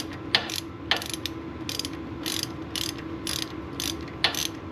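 Hand ratchet wrench clicking roughly twice a second as the caliper mounting bolts are run in.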